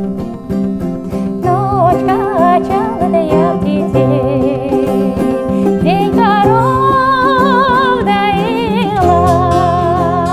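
A woman singing long held notes with a strong vibrato over plucked bouzouki and acoustic guitar; for the first second and a half only the strings play.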